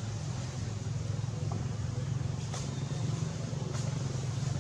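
A steady low motor hum, with a few faint clicks over it.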